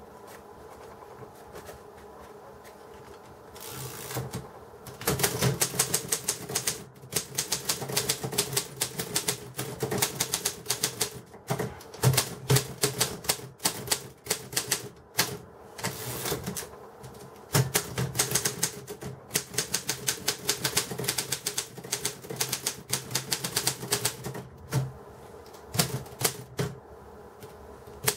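1947 Rheinmetall KsT typewriter being typed on: quick runs of key and typebar strikes, several a second, with short pauses between runs. The typing starts about four seconds in and eases off near the end.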